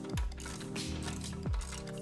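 Background music with a steady beat: deep bass hits that drop in pitch about every second and a half, over held notes.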